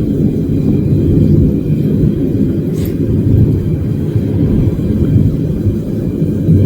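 Gas burner firing into a metal-melting furnace: a steady, low rumbling roar of burning fuel and air, with a faint short click about three seconds in.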